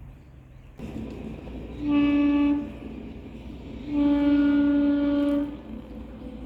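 A horn blown twice with one steady pitch: a short blast about two seconds in, then a longer one about a second later.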